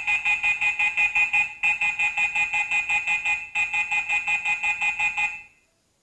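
Rapid electronic beeping, about six beeps a second, in three runs with two brief breaks, cutting off about five and a half seconds in. It sounds while a smart doorbell's Wi-Fi is being configured from the phone app.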